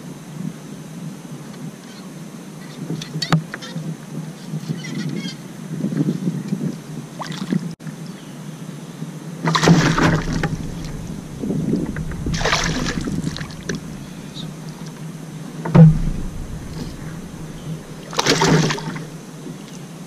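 A hooked largemouth bass splashing and thrashing at the surface beside a kayak, in several short noisy bursts, with a sharp knock about three-quarters of the way through that is the loudest sound. A steady low hum runs underneath.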